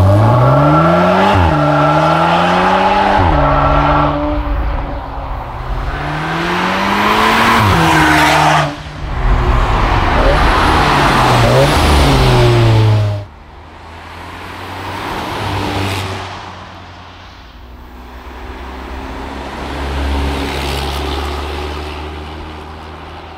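Seat Cupra Ateca's turbocharged four-cylinder engine revving hard through a modified ASG exhaust with controllable flaps. The note climbs under acceleration and drops sharply at each gear change. About 13 seconds in it falls suddenly to a much quieter, steadier engine hum that swells gently twice.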